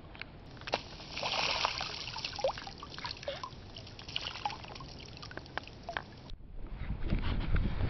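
Shallow water trickling and gurgling, with small bubbling pops. Near the end it cuts to louder low thuds.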